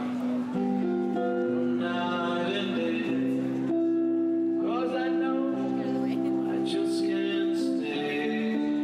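Electric guitar played through an amplifier, slow held chords changing every second or two, with a man singing into a microphone at times.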